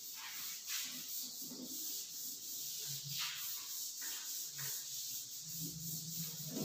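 Blackboard duster rubbing chalk off a blackboard in repeated uneven wiping strokes.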